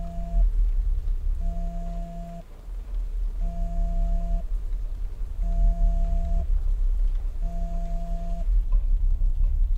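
Dark film score over the end credits: a deep, constant rumbling drone with a steady electronic tone pulsing on for about a second every two seconds, five times, stopping near the end.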